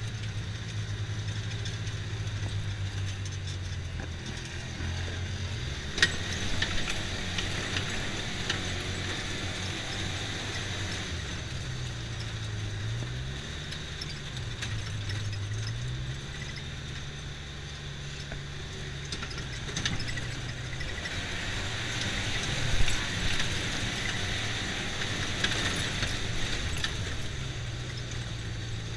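Side-by-side UTV's engine running steadily while driving on a dirt trail, its pitch dipping and rising a few times about halfway through as the speed changes. Occasional knocks and rattles from bumps in the track, the sharpest about six seconds in.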